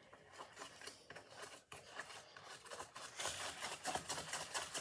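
Faint, irregular rubbing and scraping with small clicks as lotion is worked into a phone by hand, getting busier about three seconds in.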